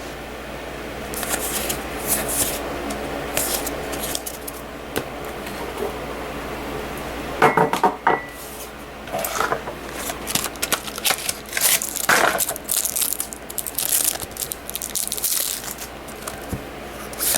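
World of Warcraft trading cards being handled and flipped through, with irregular crisp rustles, slides and light slaps of card stock.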